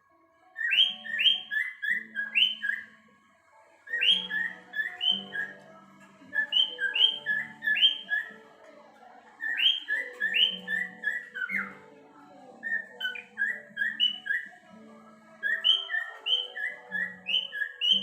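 Whiteface lutino cockatiel whistling phrases of quick, high chirping notes, several bursts with short pauses between them, over background music with plucked-string tones.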